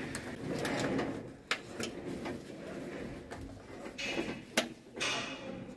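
Plastic clicks and rattling of network keystone jacks being handled and snapped into a patch panel. Several sharp clicks come between quieter handling noise, the loudest about four and a half seconds in.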